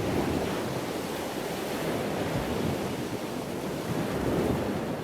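Rushing water noise, like surf, that swells and eases twice.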